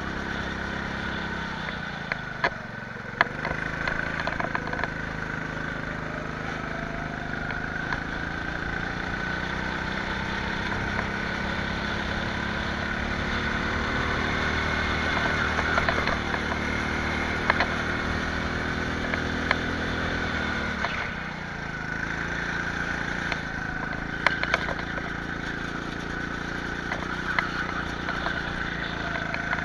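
Go-kart engine running under load. Its pitch drops briefly a few seconds in, climbs slowly for a long stretch, drops again about two-thirds of the way through, then climbs once more, with occasional sharp knocks over the top.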